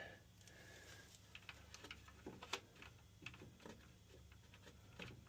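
Faint, irregular light clicks and ticks of a thick insulated wire being fed into a furnace's clogged condensate drain pipe, tapping against the pipe as it is pushed.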